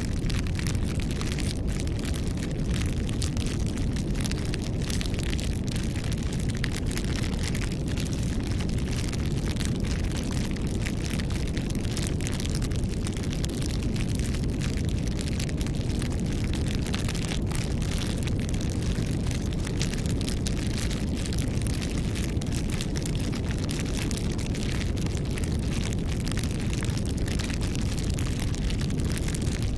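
Campfire crackling, with many quick sharp crackles and pops over a steady low rumble.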